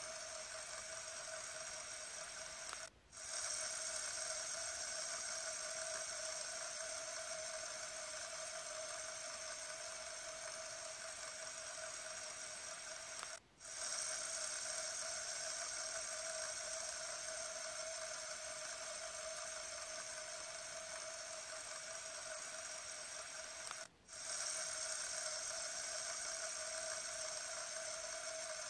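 Fidget spinner whirring steadily on its bearing, a constant hum with one strong tone. The whir cuts out for a split second three times, about ten seconds apart, and comes back slightly louder each time.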